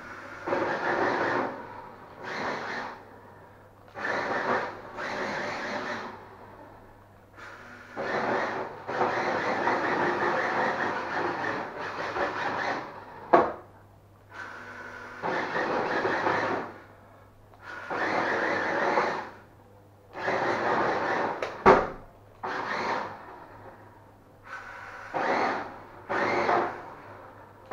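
Mondo Motors 1:10 Porsche 918 toy RC car driven in repeated bursts, its small electric motor and gears whirring and its hard tyres skidding on a wooden floor. Two sharp knocks, about halfway through and again about eight seconds later.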